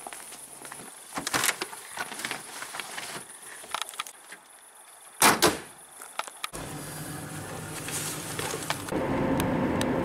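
Light clicks and knocks of luggage being handled, then one loud thump of a car being shut about five seconds in. After that a car's engine and road noise run steadily from inside the moving car, growing louder near the end.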